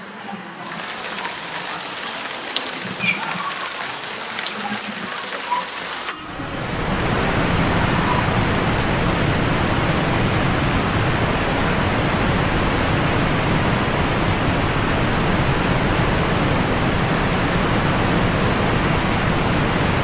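Water splashing in an indoor pool as a swimmer strokes through it. After about six seconds it changes abruptly to a steady, fuller rush of water and echoing pool noise.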